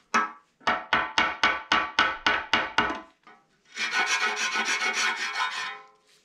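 About ten quick knocks, roughly three a second, as a hammer strikes the bed of an old lathe, then about two seconds of steady scraping as metal is rubbed or slid along the bed.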